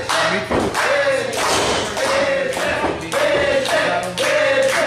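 Thuds and taps of wrestlers striking and landing on the ring mat, over background music with a sung note held again and again about once a second.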